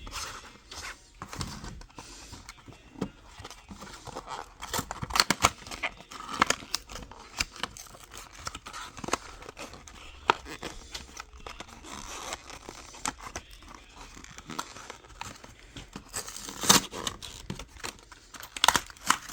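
Toy packaging being opened by hand: tearing, crinkling and scraping, with irregular sharp clicks and snaps, the loudest about five seconds in and again near the end.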